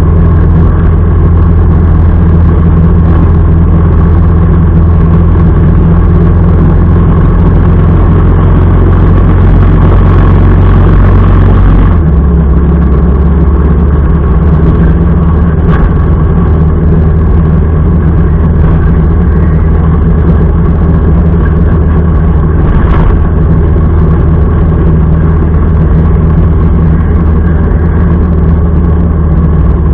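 Motorcycle engine running steadily under way, its note dropping slightly about twelve seconds in.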